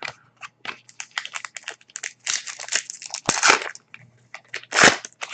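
Trading cards and foil pack wrappers being handled: a run of short crinkles and rustles, with two louder crinkles about three and a half and five seconds in.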